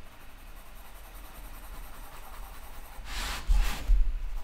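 Coloured pencil faintly scratching on paper in small circles with light pressure. About three seconds in comes a louder paper rustle with two low thumps as the spiral-bound sketchbook is turned on the table.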